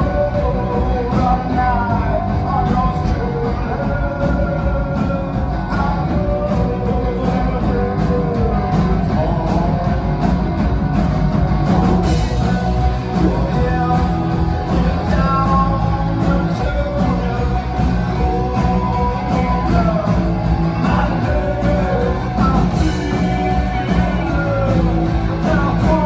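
A live rock band playing, led by electric guitar, with a full, steady low end under wavering melodic lines.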